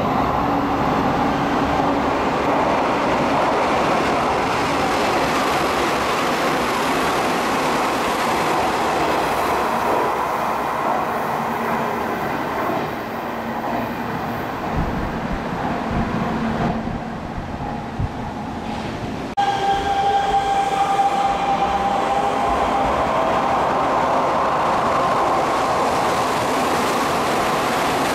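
Hanshin Main Line trains running through the station at speed without stopping: a steady rumble of wheels on rail with clattering over the rail joints. After a sudden change about two-thirds of the way through, a steady high whine runs under the passing train.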